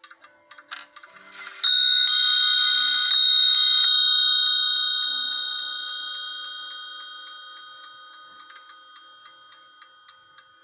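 1960 Swiss Neuchâtel mantel clock striking the half hour: four hammer blows on two bells of different pitch, in two pairs, ringing and slowly fading away. The escapement's steady tick runs on underneath.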